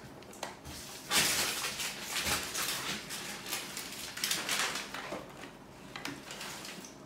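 Hard plastic L.O.L. Surprise Underwraps toy capsule being twisted and handled by hand: plastic scraping and rattling in uneven spells, loudest about a second in.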